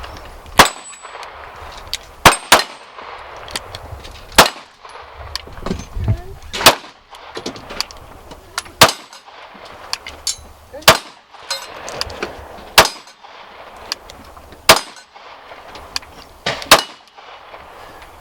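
Handgun shots fired singly at a steady pace: about ten in all, mostly around two seconds apart, with a quick pair about two seconds in. The shots have a sharp metallic ring.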